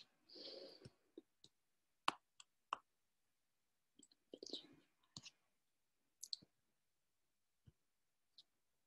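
Faint, irregular clicks of a computer being operated, with a couple of soft breathy sounds between them.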